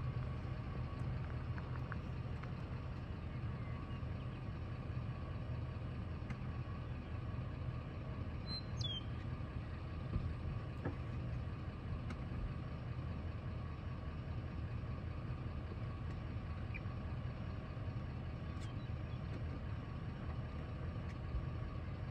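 Steady low rumble of a car's engine running, even throughout. About nine seconds in there is one short, high chirp.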